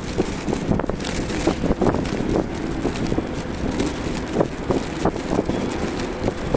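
Freight train of Taki 1000 oil tank wagons rolling past at speed, wheels rumbling and clacking repeatedly over the rail joints.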